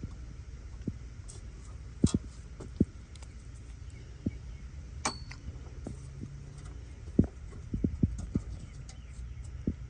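Scattered light metallic clinks and taps of hand tools and fasteners being handled while parts are worked loose, the sharpest about seven seconds in, over a low steady hum.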